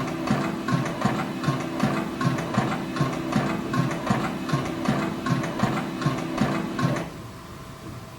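Steam locomotive running sound from a KATO Sound Box model railway sound unit, played through speakers: rhythmic exhaust chuffs, about three a second, over a steady hum. It cuts off about seven seconds in.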